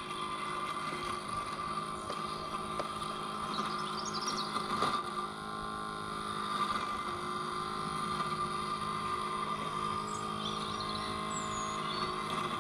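Bosch Indego S+ 350 robot lawnmower mowing, its electric motors giving a steady hum with a high whine.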